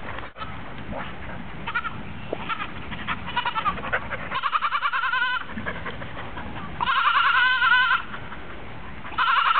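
Goat bleating: a few short calls, then three long, high, quavering bleats, about four seconds in, about seven seconds in, and again near the end.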